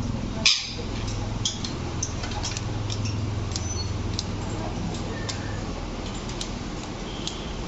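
A pet parrot's scattered clicks and taps, one sharper than the rest about half a second in, with a few brief high chirps over a steady low hum.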